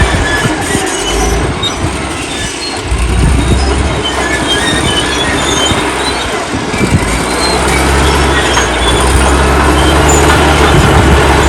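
Old crawler bulldozer working: its engine gives a steady low drone that eases about two seconds in and builds again toward the end, over a dense mechanical rumble, with scattered short high squeaks typical of steel tracks.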